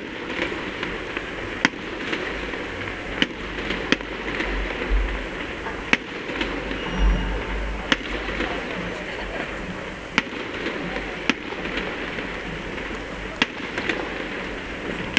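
Fireworks going off: about ten sharp bangs at irregular intervals, one every second or two, over the steady murmur of a crowd's chatter.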